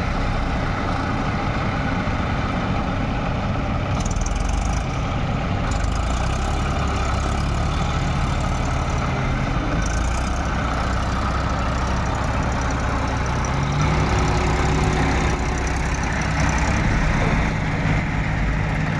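Massey Ferguson 241 DI tractor's three-cylinder diesel engine running under heavy load as it drags a loaded trailer through deep mud. The engine note rises and holds higher about three-quarters of the way through.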